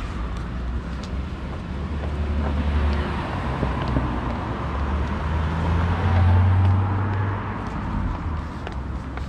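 Road traffic: a steady low rumble of passing vehicles that swells to its loudest about six seconds in, then eases off.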